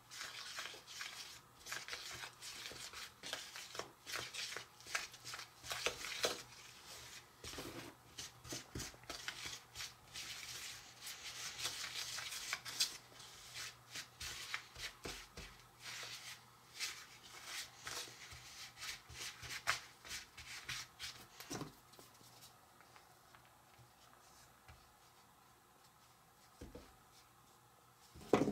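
A spoon scraping and stirring cinnamon stick pretzel mix and water in a small bowl, working it into a dough. Quick, irregular scraping strokes that thin out and fade near the end.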